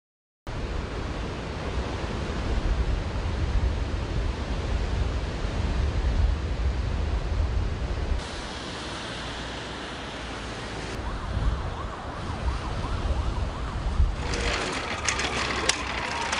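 Steady rushing roar of a river in flood, with a deep rumble. Near the end, clicking and clattering begin along with an emergency-vehicle siren that slides down and then back up in pitch.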